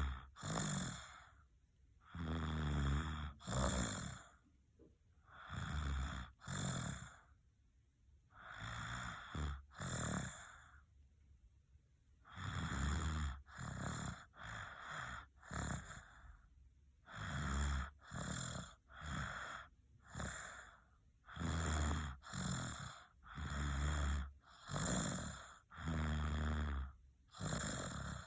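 A sleeping baby snoring and snuffling, one breath after another. The breaths come in pairs with pauses at first, then quicken to about one a second from roughly twelve seconds in.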